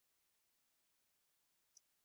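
Near silence, with one short faint click near the end.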